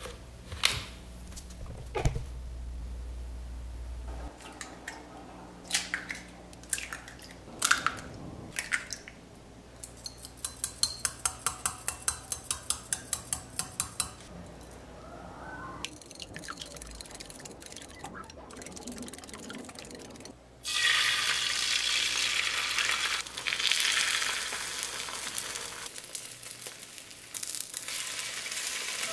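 Kitchen work sounds: dishes and utensils clinking, then a run of about a dozen quick, even knocks. About two-thirds of the way in, water starts running suddenly and flows for several seconds, then again near the end.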